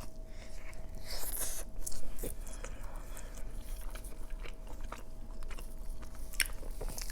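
Close-miked biting and chewing of a large burrito: wet mouth smacks and soft crunches, loudest about a second and two seconds in.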